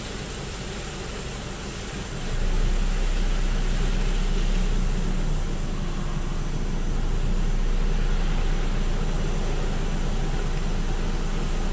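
Belanger FreeStyler automatic car wash running, a steady rush of water spray and spinning cloth brushes with machinery hum. It gets louder, with a deeper rumble, about two seconds in.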